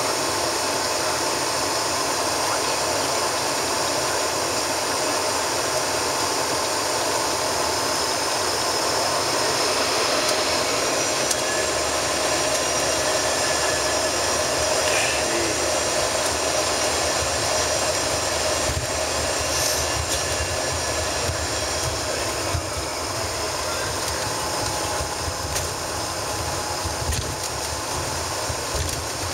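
Cabin noise of an Embraer ERJ-145 taxiing: the jet's turbofan engines idling with a steady whine over a constant airflow hiss, and a low rumble that grows stronger about halfway through.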